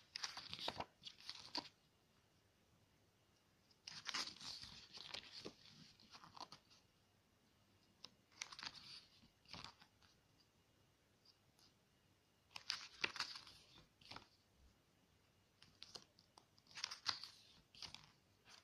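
Glossy pages of an album photobook turned by hand: a short burst of paper rustling and flapping about every four seconds, five times in all.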